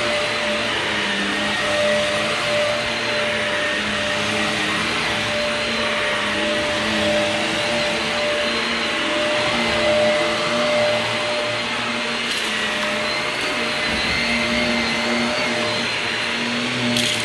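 Vacuum cleaner running steadily over carpet during a pre-vacuum, its motor giving a constant whine.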